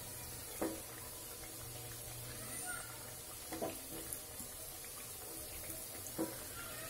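Oil sizzling steadily as thekua fry in a kadhai, with a few light knocks of a perforated frying ladle against the pan as the cakes are turned.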